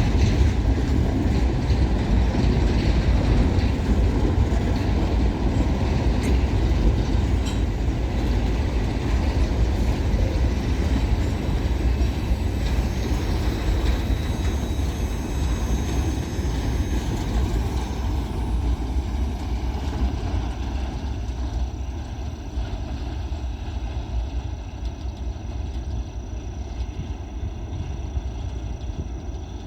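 Freight train of empty grain hopper wagons rolling past through a curve: a steady, loud rolling noise of wheels on rail that fades gradually over the last third.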